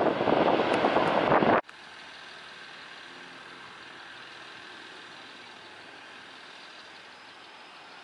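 Strong wind buffeting the microphone for about the first second and a half, cut off suddenly, followed by a steady, much quieter engine hum.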